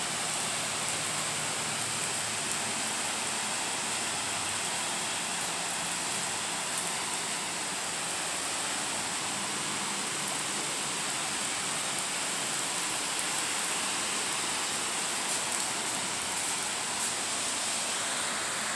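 Steady rain falling on wet pavement and parked cars: a continuous even hiss, with a few faint ticks of drops.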